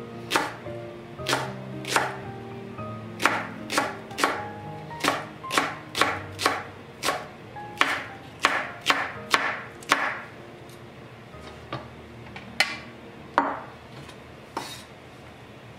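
Kitchen knife chopping a green onion on a wooden cutting board. About seventeen sharp strokes at roughly two a second for the first ten seconds, then a few spaced strokes.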